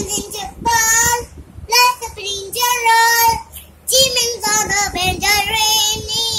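A child singing in a high voice, holding drawn-out notes in short phrases with brief breaks between them.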